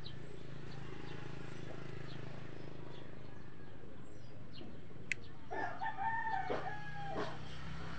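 A rooster crowing once, a call of about two seconds that rises, holds and falls, over a steady low hum. A single sharp click comes just before the crow.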